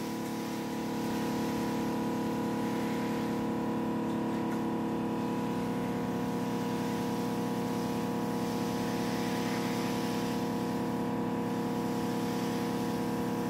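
Portable drapery steam-cleaning machine running with a steady, even hum while its solution is sprayed through a hand wand.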